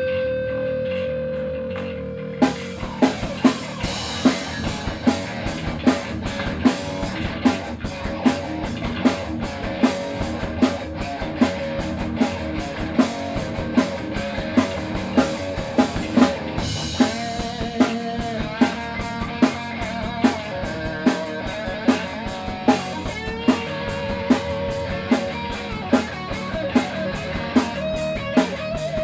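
Rock band playing: electric guitar, bass guitar and drum kit. A single held note comes first, then the full band comes in about two seconds in with a steady, heavy beat a little faster than once a second.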